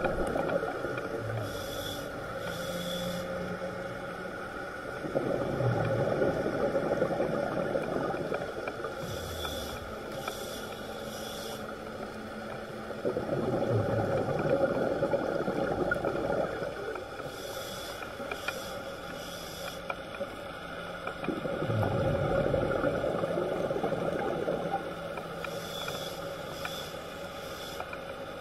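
Scuba diver breathing through a regulator underwater, a breath about every eight seconds: four short hissing inhales and, between them, three longer and louder exhales of bubbling.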